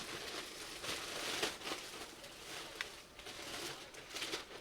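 Pre-slit plastic shrink wrap crinkling and rustling as it is peeled off a boxed kit, with scattered small crackles.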